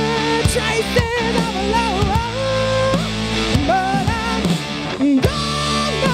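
Live rock band playing, with a male lead singer belting a melody of held, wavering notes over electric guitar and drums.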